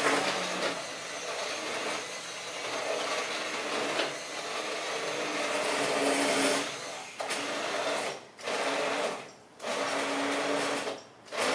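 Immersion blender whirring as it purees hot tomato soup in a pot, running steadily at first, then switched off and back on in short pulses about three times in the second half.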